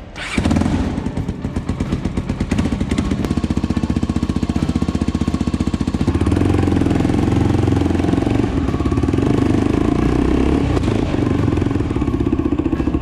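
Honda Tornado XR250's single-cylinder four-stroke engine running through an aftermarket Protork PowerCore 3 exhaust, a steady rapid pulsing that comes in abruptly with a brief rev. Its engine speed rises and is held higher from about six seconds in, then drops back near the end.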